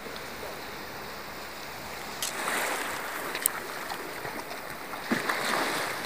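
Small sea waves washing onto a shallow sandy shore: a steady surf hiss that swells for about a second, about two seconds in, with a couple of short sharp clicks.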